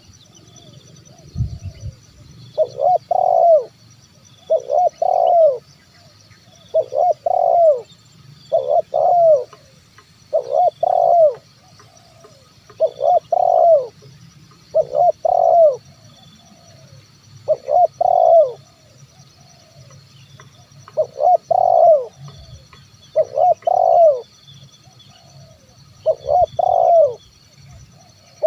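Spotted dove cooing its song, a short phrase of two or three coos repeated about every two seconds.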